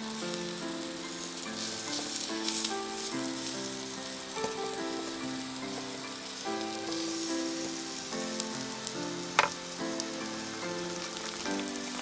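Food sizzling and frying in fat on a small thick iron griddle, over background music with a slow melody. One sharp tap about three-quarters through.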